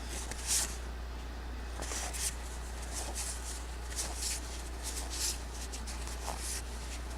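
Trading cards sliding against each other as a stack is flipped through by hand, a series of short, soft swishes about one or two a second. A steady low hum runs underneath.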